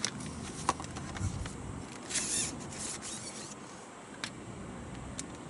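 Handling noises: a few light clicks and knocks, with two short rasping sounds about two and three seconds in.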